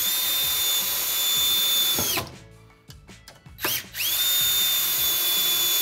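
Cordless drill driving screws into wooden blocking between framing studs: two steady, high whining runs of about two seconds each. The second starts about three and a half seconds in. Each run spins up at the start and winds down at the end.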